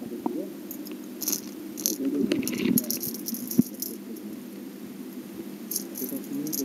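Irregular sharp clicks and rattles over a low muffled murmur, as picked up by a camera underwater.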